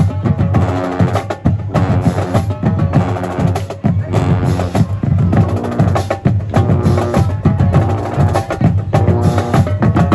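Marching band drumline playing a loud, fast, driving beat on snare and bass drums, with sharp rim clicks.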